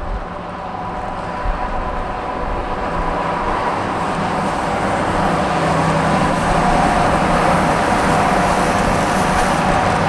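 KiwiRail EF-class electric locomotive with its train running by, a steady noise with a whine of several tones over it, growing steadily louder as it approaches.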